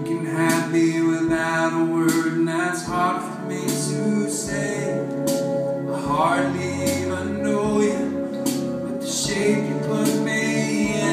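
Solo male singer-songwriter singing live with his own strummed guitar accompaniment, held vocal notes over ringing chords.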